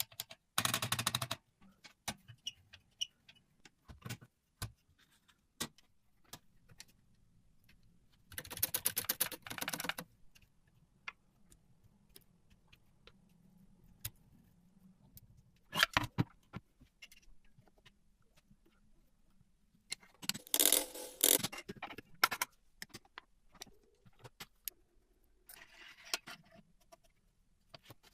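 Vintage mechanical typewriter clicking and clattering in five short bursts of rapid metal clicks, with scattered single clicks between them.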